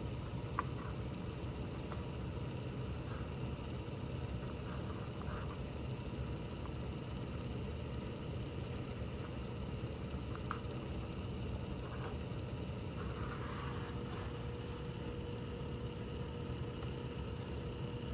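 Steady low background hum, with faint scattered rustles and ticks of paracord being handled and knotted on a cardboard surface.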